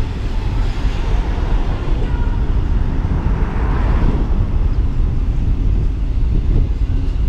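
A car driving along a town street: steady low rumble of road and wind noise, with other traffic swelling briefly near the middle.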